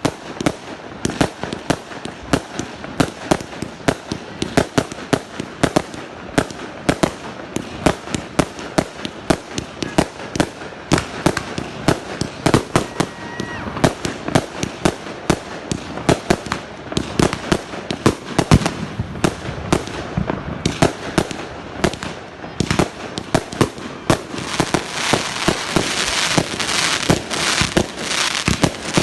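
Fireworks going off in a rapid barrage, with sharp bangs several times a second. Near the end they run together into a dense, continuous crackle.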